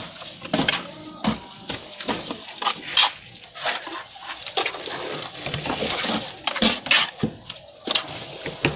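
Steel plastering trowels scraping and slapping cement mortar onto the underside of a concrete beam, in irregular knocks and scrapes.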